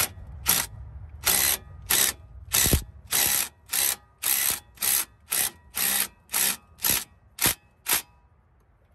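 DeWalt cordless impact driver hammering on a sway bar end link nut in a string of about fourteen short trigger bursts, roughly two a second, tightening the new link down. The bursts stop shortly before the end.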